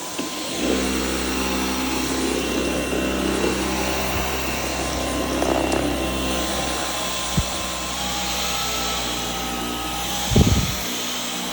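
Dyson Outsize cordless stick vacuum running steadily. About two-thirds of the way in its whine steps up in pitch as it automatically changes its suction power between hardwood and carpet. A short thump comes near the end.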